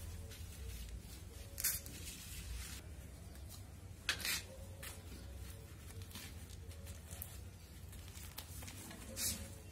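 Hands pulling apart the root ball of a thuja (morpankhi) plant: roots and soil tearing and crumbling, with short rustling bursts about two seconds in, at four seconds (the loudest) and near the end, over a steady low rumble.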